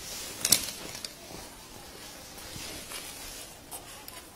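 Clothing rustling and handling noise close to the microphone. There is a sharp knock about half a second in and a few fainter clicks after it.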